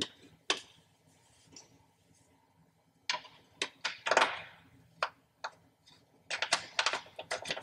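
Small metal clicks and taps as hex nuts are handled and threaded by hand onto the hood hinge studs, scattered at first and turning into a quick run of clicks near the end.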